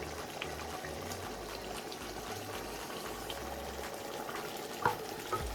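Pot of egusi soup simmering, a steady bubbling noise, with two light knocks near the end.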